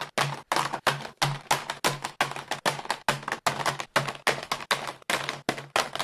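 A rapid, even run of sharp clacking hits, about four a second, each with a low thud beneath it.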